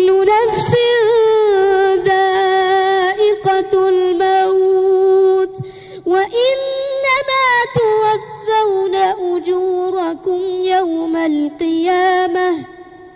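A child's voice chanting Quranic recitation in long, drawn-out, ornamented notes. There is a short break for breath about six seconds in, and the voice stops near the end.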